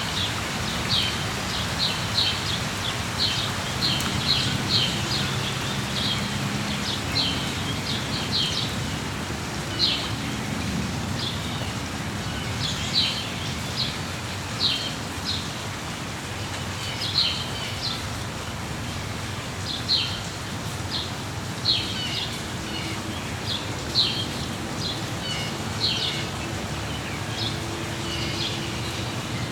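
Steady rain with birds chirping over it: short, high chirps repeating about every second, sometimes in quick runs.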